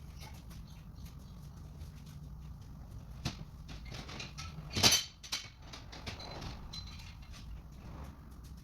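Light clicks and clinks of metal gearbox parts being handled and fitted during reassembly, with one louder clatter about five seconds in.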